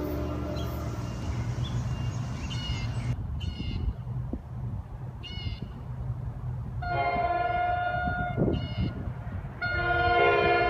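Nathan K5LA five-chime air horn on an approaching New Jersey Transit commuter train, sounding two steady chord blasts: a short one about seven seconds in and a longer one starting near the end and still sounding at the end.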